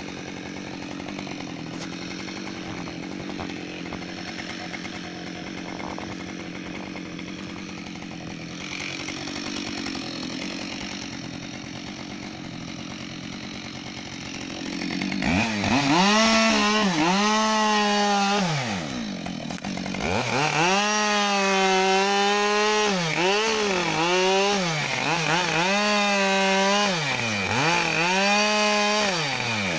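Husqvarna 572XP two-stroke chainsaw idling steadily, then about halfway through opening up to full throttle to cut into a fallen spruce trunk. The engine note drops and climbs back several times as the throttle is eased and reopened.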